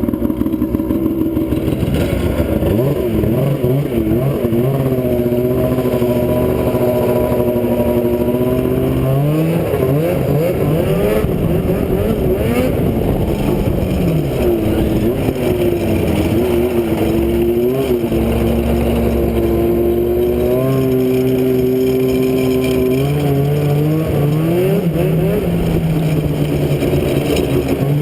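Small vehicle engine running under way, its pitch rising and falling again and again with the throttle.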